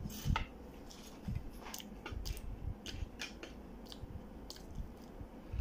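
Close-up eating sounds: wet mouth and lip smacks while eating yogurt, with a plastic spoon scooping and clicking against the plastic yogurt cup. The clicks are short and irregular, about a dozen of them.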